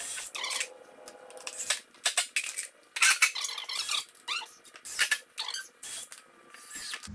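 Irregular clinks, rattles and squeaks of hand tools and screws being handled: cordless drills and screws by a glass jar.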